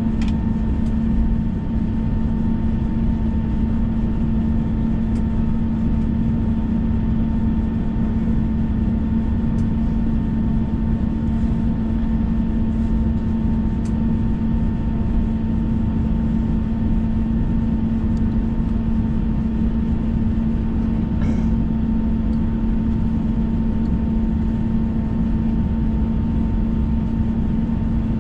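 Airbus A321 cabin noise: a steady low rumble of the jet engines and airflow with a constant hum, not changing in level.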